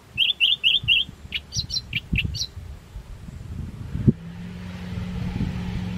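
Small birds chirping: a fast run of four repeated notes, then a few higher calls. From about four seconds in, the steady low drone of a distant light aircraft's engine comes in and slowly grows louder, with low thumps throughout.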